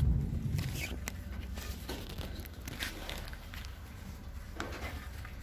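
Low steady hum with a few faint knocks and shuffles scattered through it, like footsteps and small handling noises.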